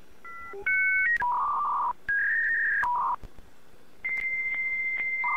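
A string of steady electronic beep tones at changing pitches, some sounding two at once, starting and stopping sharply, like a synthesized beeping melody.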